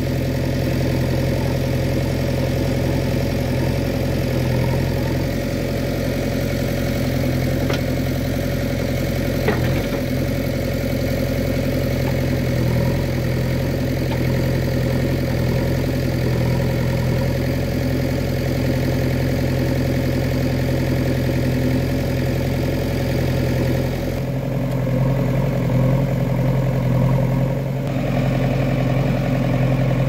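JCB 3DX backhoe loader's diesel engine running steadily while the backhoe digs. Two short sharp knocks come about 8 and 10 seconds in, and the engine sound changes about 24 seconds in.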